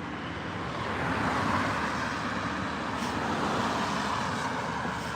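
Steady road traffic noise, a little louder between about one and two seconds in.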